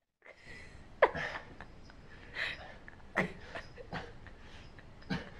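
A person's voice in short, sharp breathy sounds, about one a second, over low room noise.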